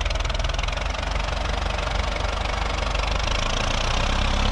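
Ursus C-360 tractor's diesel engine idling steadily with an even, fast knock, growing a little louder near the end.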